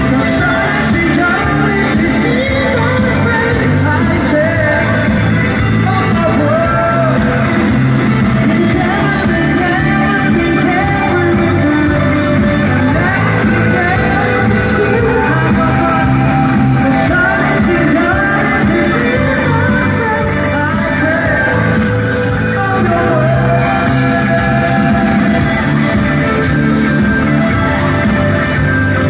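Live rock band playing with electric guitars and drums, a singer's voice carrying the melody, heard from the audience in a large arena.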